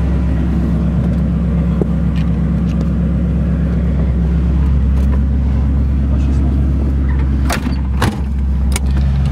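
1968 Corvette's 327/350 small-block V8 with chambered dual exhaust idling steadily, with a couple of sharp knocks shortly before the end.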